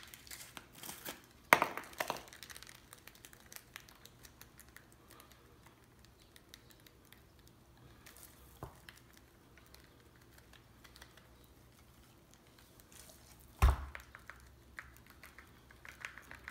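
A plastic spice shaker rattling and ticking faintly as seasoning is shaken out and rubbed onto raw poultry by hand. There is a sharp click about a second and a half in and a louder knock with a dull thud near the end.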